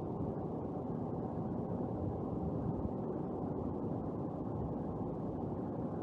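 Steady, dull city street ambience: a low, even rumble of traffic and crowd noise with no single sound standing out.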